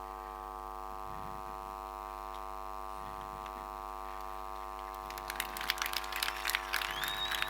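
Steady electrical mains hum from the sound system, a buzzy drone with many overtones. From about five seconds in, irregular sharp crackles and clicks start over it.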